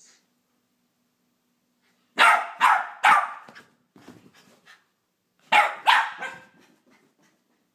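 Jack Russell terrier puppy barking: three sharp barks in quick succession about two seconds in, then two more a couple of seconds later.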